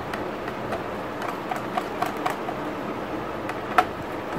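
Small, irregular clicks and ticks of a screwdriver turning and seating the screws of a laptop-style CPU heat sink on a motherboard, with one sharper click near the end, over a steady background hiss.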